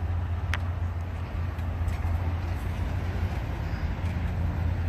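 Steady low rumble of road traffic and idling cars at a railroad grade crossing, with a faint click about half a second in.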